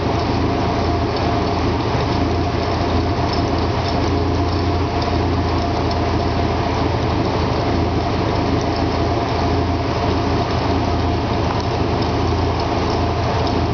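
Subaru engine of a Rotorway Scorpion helicopter running steadily on a ground test run, with the main rotor turning.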